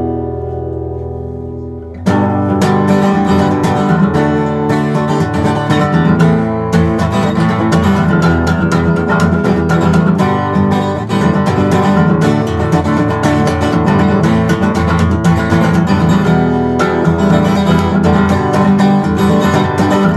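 Gibson SJ-200 jumbo flat-top acoustic guitar played solo: a chord rings out and fades for about two seconds, then playing resumes with a steady stream of picked notes and chords.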